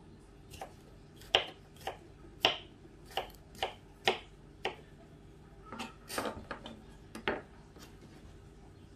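Kitchen knife chopping cucumber on a wooden cutting board: about a dozen uneven knocks of the blade striking the board, one or two a second. The knocks stop shortly before the end.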